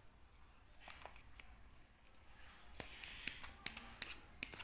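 Faint eating sounds: soft clicks of chewing a mouthful of rice and fried chicken, then a metal spoon scraping through the food in a paper bowl about three seconds in, followed by a few sharp taps.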